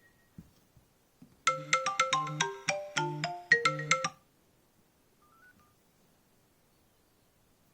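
iPhone X incoming-call ringtone: a quick tune of short bright notes that starts about a second and a half in and stops about four seconds in.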